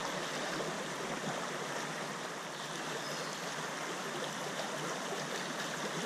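Shallow rocky river flowing: a steady rush of water over stones.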